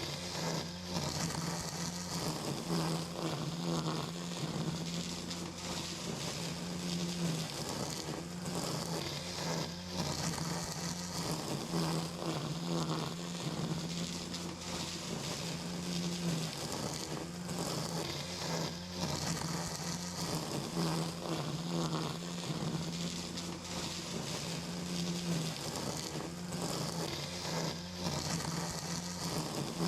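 Small electric motor running with a steady, insect-like buzz, its hum shifting slightly in pitch and strength every few seconds.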